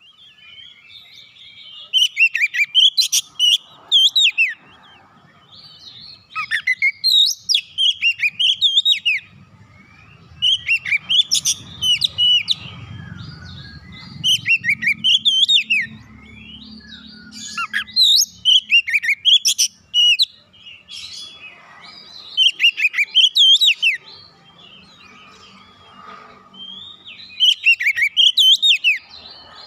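Oriental magpie-robin singing: loud phrases of rapid, sweeping whistles and chirps, about seven phrases of around two seconds each with short pauses between.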